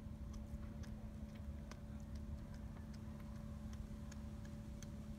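Cat chewing a rat, crunching through its bones in irregular sharp crunches, roughly two a second, over a steady low hum.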